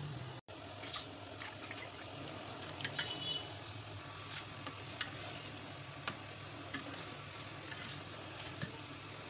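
Soaked rice being tipped into a large steel pot of water and stirred with a metal ladle: water sloshing, with scattered sharp clinks of the ladle against the pot.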